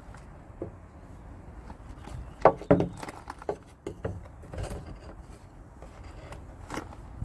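Scattered knocks and clatters over a low background rumble, a cluster of the loudest about two and a half seconds in, then a few lighter ones.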